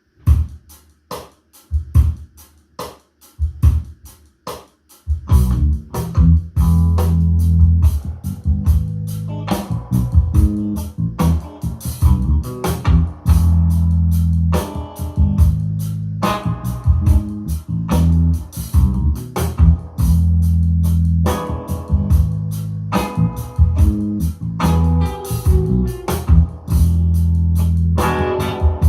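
Band music with drums, bass guitar and guitar played back through a Yamaha DXR8 powered loudspeaker. About five seconds of spaced drum hits, then the bass and the rest of the band come in.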